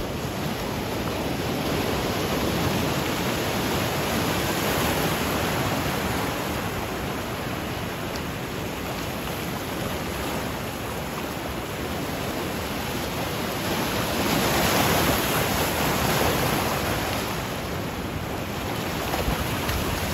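Ocean surf washing over rocky ledges: a steady rush of breaking and draining water, with one wave surging louder about two-thirds of the way through.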